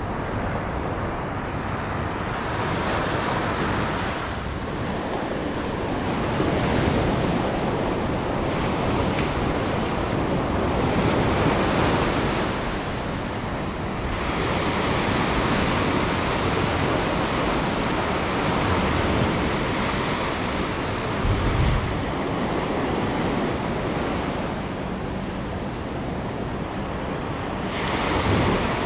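Ocean surf breaking and washing up the sand in repeated swells that rise and fall every few seconds, with wind on the microphone.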